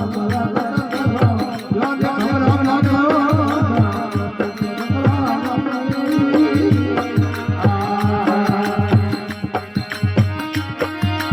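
Rajasthani desi bhajan music: a hand drum keeps a steady beat under a wavering melodic line. The melody settles into steadier held notes about eight seconds in.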